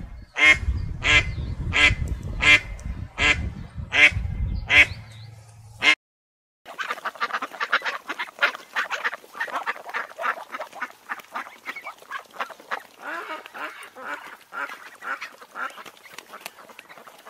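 Mallard ducks quacking: about eight loud, evenly spaced quacks over a low rumble. Then, after a sudden cut, many rapid, softer quacks from the flock run together and slowly fade.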